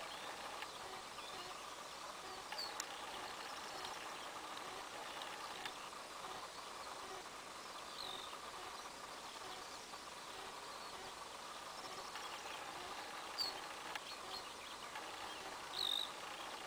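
Evening field ambience: a steady drone of insects, with four short high bird chirps scattered through it, the last near the end the loudest.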